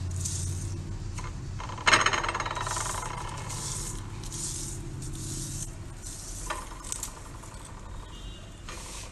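A lemon half coated in salt and chili powder is rubbed back and forth over a roasted corn cob, a scratchy rasp that repeats about every two-thirds of a second. About two seconds in comes a loud clink with a ringing tail that fades over a few seconds, and a lighter one later.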